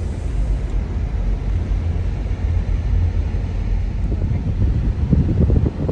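Strong wind buffeting the microphone: a loud, uneven low rumble that rises and falls in gusts.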